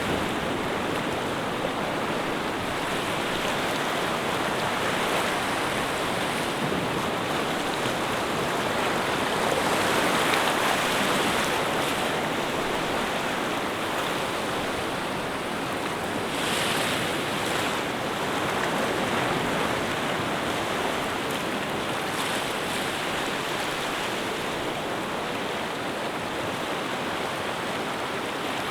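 Continuous rushing of water, a steady wash that swells a little about ten seconds in and again about sixteen seconds in.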